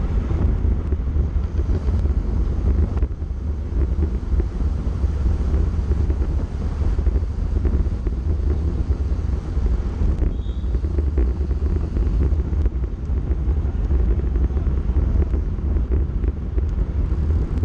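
Steady wind rumble buffeting the microphone of a camera on a road bike riding at about 40 km/h.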